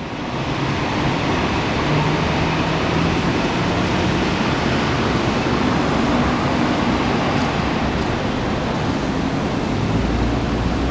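Steady roar of city street noise, a rushing traffic-like noise with a faint low engine hum underneath.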